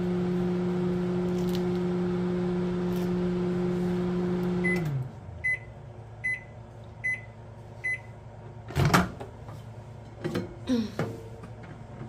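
Countertop microwave oven running with a steady hum while heating a jar of hard wax, shutting off about five seconds in as the cycle ends, then beeping five times. A few seconds later the door is popped open with a loud clunk, followed by a few small knocks as the jar is handled.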